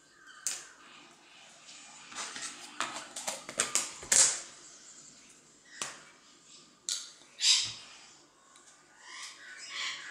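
Plastic kit items handled on a wooden table: a plastic spoon, test tube and tub clicking and tapping, with short scraping, rustling bursts. The loudest rustles come about four seconds in and again past seven seconds.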